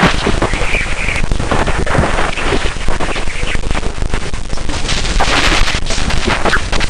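Space 'sound' of Jupiter's moon Ganymede, radio-wave data turned into audio: dense crackling static with rapid clicks and bursts of hiss, swelling around two seconds in and again about five seconds in.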